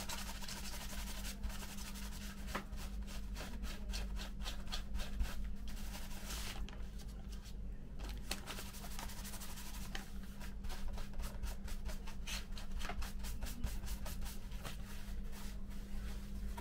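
Hands rubbing, scraping and handling small plastic model parts on a newspaper-covered bench, with many small irregular clicks and taps; it goes quiet for about a second around the middle. A steady low hum runs underneath.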